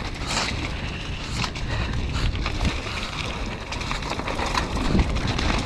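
Wind buffeting the microphone of a mountain bike's onboard camera during a fast downhill run, with the tyres rolling over wet fallen leaves and frequent short knocks and rattles from the bike over bumps.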